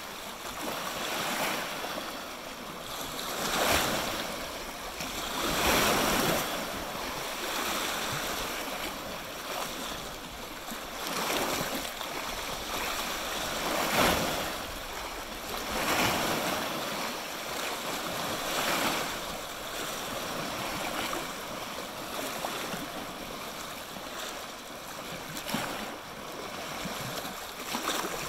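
Small waves washing on a shoreline: a steady wash of water that swells and fades every few seconds.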